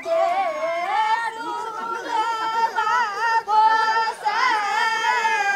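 Women's voices singing, long held notes with a wavering pitch.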